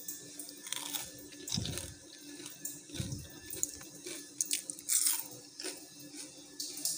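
Crisp deep-fried rice fritters (chaul bara) crunching: scattered sharp crackles, with two soft low thumps about a second and a half and three seconds in.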